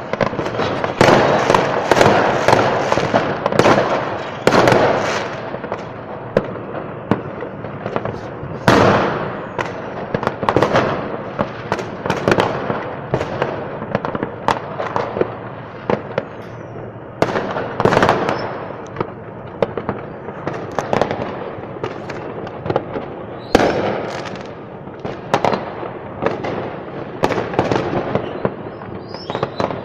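New Year's Eve fireworks over a city: a continuous barrage of rocket and firecracker bangs and crackling from many directions, with single sharper bangs standing out every second or two.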